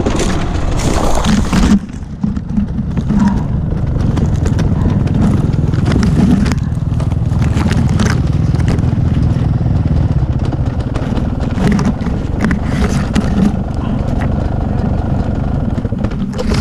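Beta 250 RR two-stroke enduro engine revving hard, then dropping abruptly about two seconds in to a lower, steadier run, with crackling and scraping of brush against the bike as it goes off the trail into scrub. The engine sound falls away sharply at the very end.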